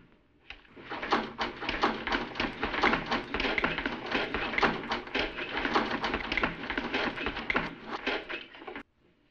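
A dense, rapid clatter of taps and knocks from people scrambling and scuffling about a room, cutting off suddenly near the end.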